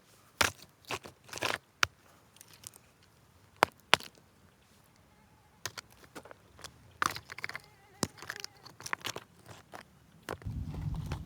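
Irregular sharp crunches and knocks, scattered and uneven, with the loudest ones in the first four seconds. A steady low rumble comes in just before the end.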